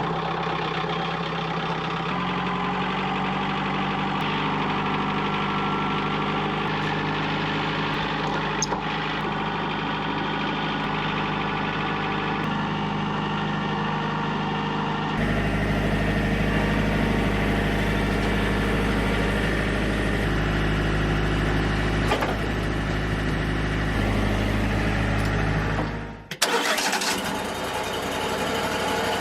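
An engine running steadily, its note shifting abruptly about 2 seconds in and turning deeper about halfway through; near the end it drops out briefly and a rougher, rattling machine sound takes over.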